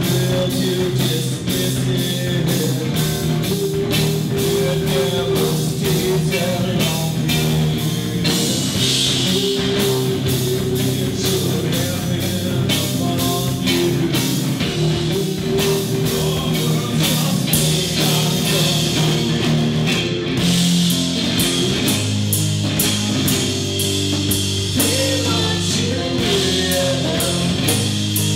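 Live rock band playing: electric guitar and bass over a drum kit keeping a steady beat on the cymbals.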